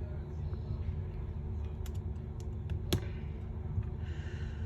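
A few light clicks and taps of small tools or parts being handled during a phone repair, the sharpest about three seconds in, over a steady low hum.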